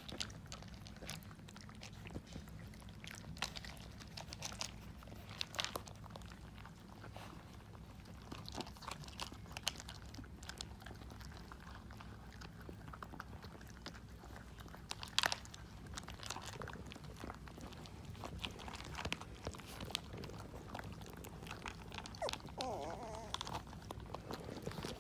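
Several Boxer puppies crunching and chewing dry kibble: a quick, irregular run of small crunches and clicks over a steady low hum.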